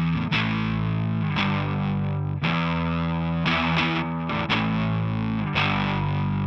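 Electric guitar played through a Catalinbread Rah overdrive pedal: distorted chords struck roughly once a second and left to ring.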